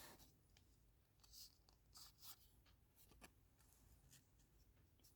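Near silence, with a few faint, short rustles and ticks of trading cards being handled and slid.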